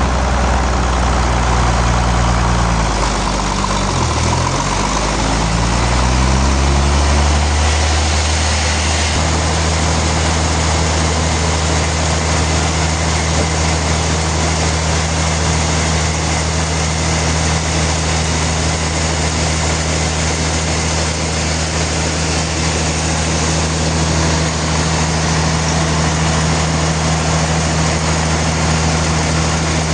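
Sawmill machinery engine running, a steady heavy hum. Its pitch dips about four seconds in, climbs back, and settles into an even drone from about nine seconds on.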